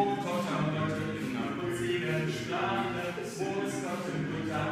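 A cappella vocal group singing unaccompanied in close harmony: several voices hold notes together and move from chord to chord.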